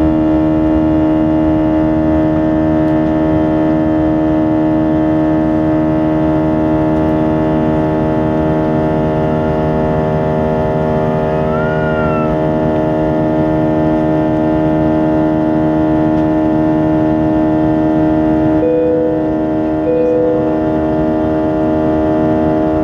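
Airbus A320 cabin noise in flight: the steady drone of the jet engines, with several steady humming tones over a low rumble. About halfway through there is a brief squeak that rises then falls, and near the end two short beeps come about a second apart.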